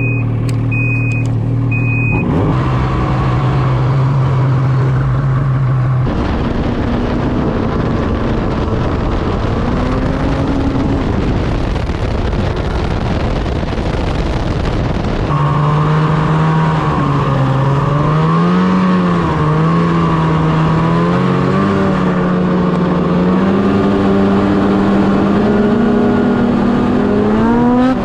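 Ski-Doo Summit 800R E-TEC two-stroke twin snowmobile engine running through a GGB Mountain Can aftermarket exhaust: idling and being blipped, its pitch wavering and rising near the end. Three short electronic beeps sound at the very start. The engine sound changes abruptly about six and fifteen seconds in.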